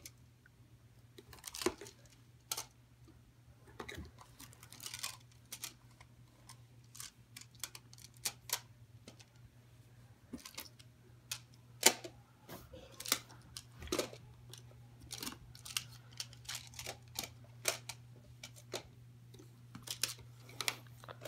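Picasso Tiles plastic magnetic building tiles clicking and clacking as they are handled and snapped together, a scatter of irregular sharp clicks, with a faint steady low hum underneath.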